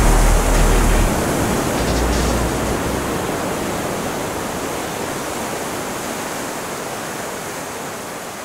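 Ocean surf washing onto a beach: a steady rush of waves that slowly fades away.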